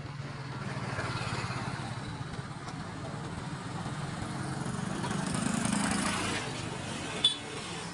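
Motorbike and scooter traffic riding past at low speed, engines running steadily, one passing close and loudest about five to six seconds in. A single short sharp click or knock comes near the end.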